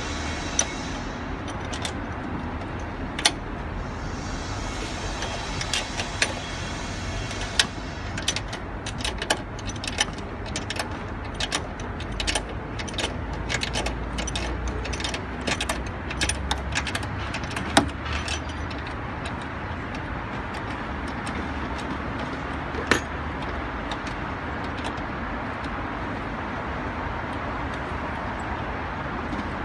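Metal clicking and clinking of a wrench working the nuts on a strut tower, with quick runs of clicks through the middle, over a steady low hum.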